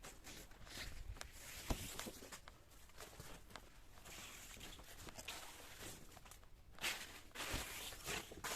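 Faint, irregular footsteps with light rustling, someone walking through the field.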